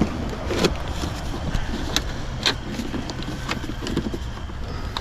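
Scattered clicks and light knocks of objects being handled and packed, over a steady low hum.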